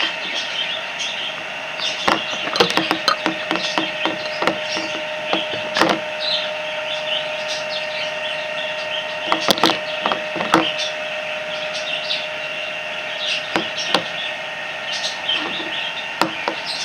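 Slime being stirred and worked in a container: irregular clusters of clicks and taps, the busiest about two seconds in, near six seconds and around ten seconds.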